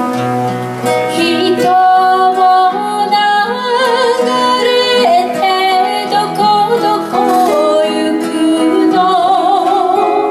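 Two acoustic guitars playing a slow accompaniment together, with a singing voice carrying the melody over them in long held notes with vibrato.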